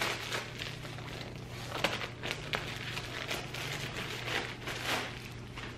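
Plastic clothing packaging rustling and crinkling in scattered crackles as it is handled and opened, over a steady low hum.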